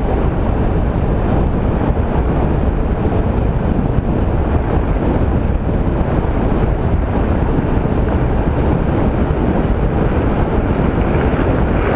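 Steady wind rush on a helmet-mounted microphone from a Honda ST1300 motorcycle riding at road speed, with engine and road noise underneath. The microphone has lost its foam windsock and wears an improvised cover, so the wind is loud and heaviest at the low end.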